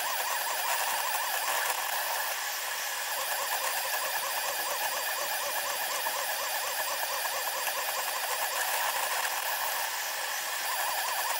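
SeeMeCNC Orion Delta 3D printer's stepper motors and fan, played back ten times too fast: a high, rapidly warbling whine of the motors over a steady hiss.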